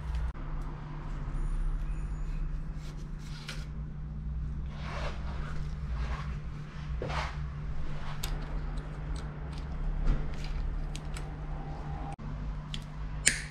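Gloved hands working a bicycle gear cable at a Shimano SIS rear derailleur: short scraping and rustling sounds with scattered small metal clicks, over a steady low hum.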